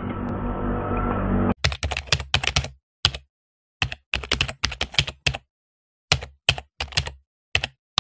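Keyboard typing sound effect: irregular runs of sharp key clicks with silent gaps between them. A steady low hum cuts off about a second and a half in, just before the clicks start.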